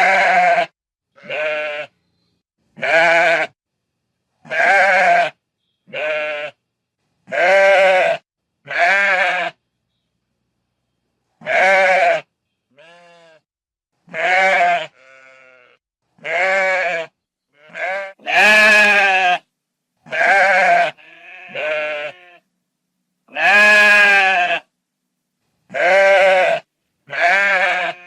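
Sheep bleating: about twenty separate, wavering bleats, one every second or two, most loud and a few faint, with silent gaps between them and a longer pause about ten seconds in.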